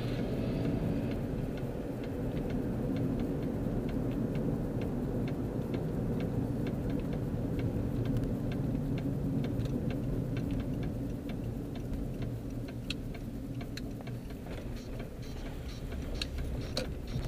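Car cabin: steady engine and road rumble while driving, with a regular ticking on top. The rumble gets quieter over the last few seconds.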